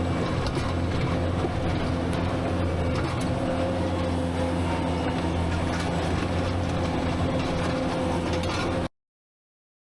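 Rented skid steer's diesel engine running steadily under work, with faint scattered rattles; the sound cuts off suddenly near the end.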